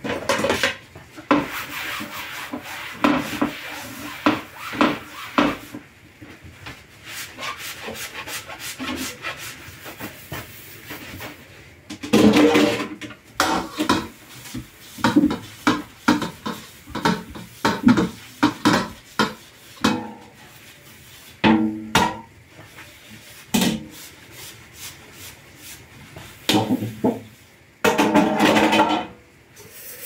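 Dishes being washed by hand: a soapy sponge scrubbing metal cookware in quick rubbing strokes, with knocks and clatters of pots and a tray against the stainless steel sink. A couple of longer, louder scrubbing spells stand out, about twelve seconds in and near the end.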